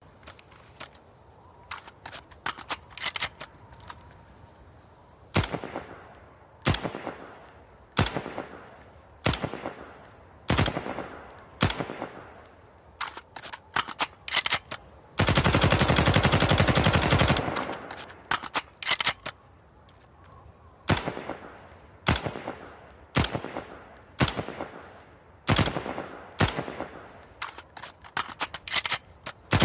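Robinson Arms XCR assault rifle firing: single shots and short bursts, with one unbroken full-automatic burst of about two seconds near the middle.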